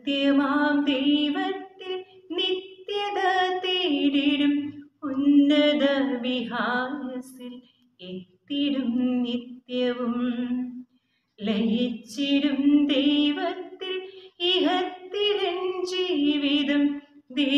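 A woman's solo voice reciting a poem in a sung melody, unaccompanied, in phrases of a second or two with short pauses between them.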